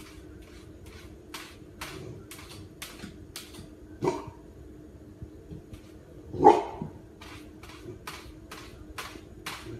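Golden retriever puppy pawing at a refrigerator door, a run of quick slapping scratches about three a second, broken by two short barks about four and six and a half seconds in, the second the loudest. A faint steady hum runs underneath.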